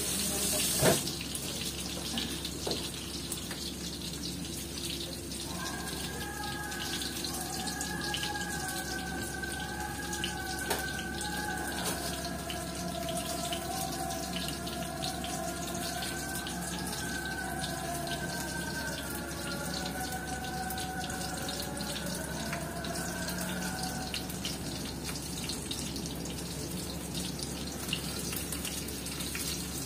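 Whole garlic cloves sizzling in oil in a frying pan, a steady crackling hiss. A single sharp knock about a second in.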